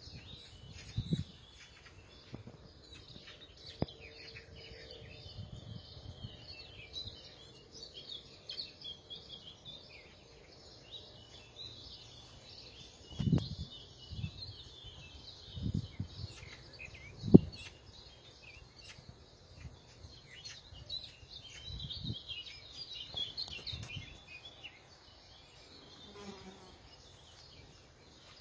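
Meadow ambience: birds chirping, with an insect buzzing for the first few seconds. A few low bumps of handling noise from the handheld camera are the loudest sounds.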